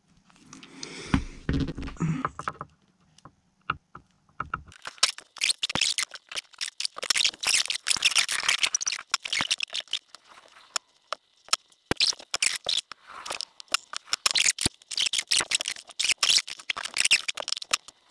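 Hands crimping insulated spade connectors onto wire with multitool crimping pliers, with the parts being handled on a tabletop: a few soft knocks, then from about five seconds in a dense run of small clicks, scrapes and crackles.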